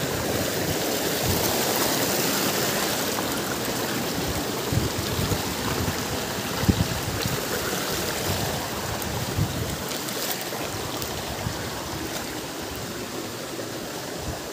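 Steady rush of a stream's running water, slowly growing fainter toward the end, with a few soft low thumps through it.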